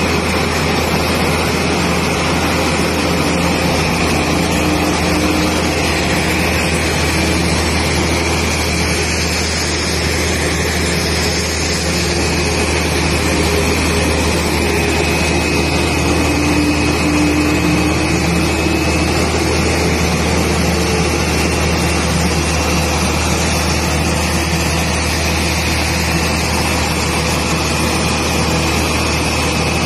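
Pushback tug's engine running steadily under load as it pushes a Boeing 787-8 Dreamliner back, heard from on the tug, with a steady high whine over the low engine noise.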